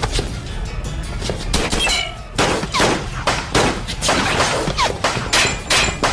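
Film soundtrack gunfight: a rapid run of gunshots, about two or three a second, over background music.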